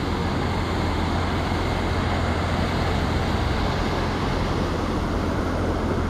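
Steady rushing of water pouring over a low river weir, with a deep rumble underneath.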